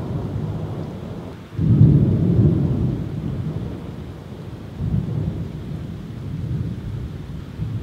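Thunder rumbling over steady rain, with a loud roll starting suddenly about one and a half seconds in and a smaller one near five seconds.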